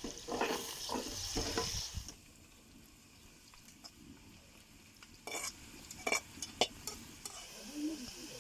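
Food being stirred in a frying pan: scraping strokes for about the first two seconds, then a quieter stretch broken by several sharp clicks.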